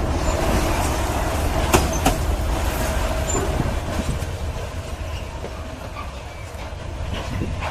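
Freight train's grain wagons rolling along the track, wheels clicking over rail joints with a thin squeal over a steady rumble, the sound gradually fading away.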